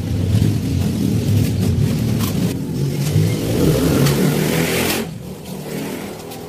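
Yamaha Sniper 150's single-cylinder engine running and being revved, rising in pitch from about three seconds in, then dropping back to a quieter idle about five seconds in.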